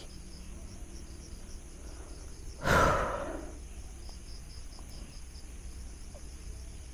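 Crickets chirping in a steady, evenly pulsing rhythm. About three seconds in, a person lets out one loud sighing exhale, lasting under a second.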